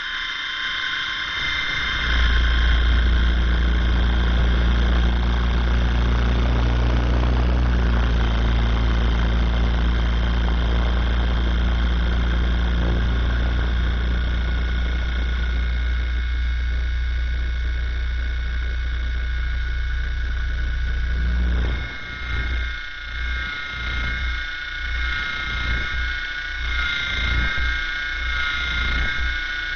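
RC helicopter in flight, heard from a camera riding on its spinning rotor: a steady high whine made of several tones, with a heavy deep rumble that sets in about two seconds in. About three-quarters of the way through, the rumble drops out and the low end comes and goes unevenly.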